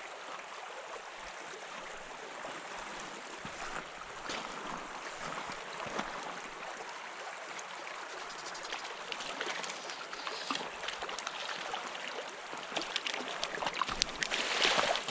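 Small trout stream running over rocks: a steady rush of flowing water, louder for a moment near the end.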